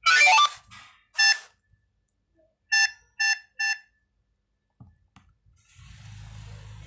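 Electronic children's study book sounding as its volume buttons are pressed: two short electronic sounds near the start, then three short beeps about half a second apart. Near the end a faint hum comes from its speaker.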